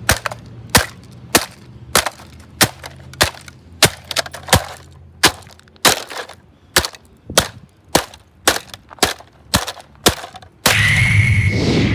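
Rapid repeated hammer blows smashing a plastic Dirt Devil vacuum cleaner housing, about twenty sharp strikes roughly every half second, splitting it apart. Near the end comes a louder, longer burst of noise with a high steady tone.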